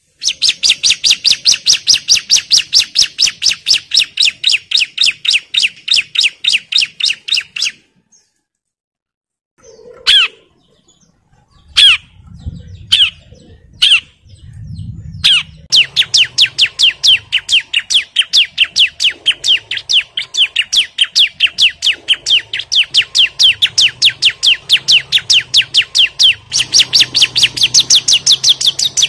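Bar-winged prinia (ciblek) calling in a fast, even series of sharp, high notes, agitated territorial calling at a rival. The series breaks off about 8 seconds in, gives a few single notes, then resumes about halfway through and keeps going.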